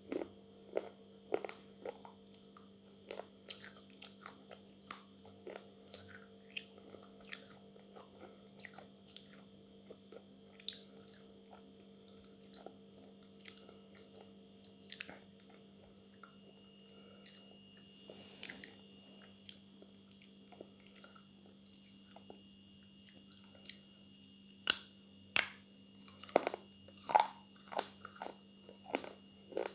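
A person biting and chewing pieces of slate pencil close to the microphone: irregular sharp crunches, louder and closer together near the end. A steady low hum runs underneath.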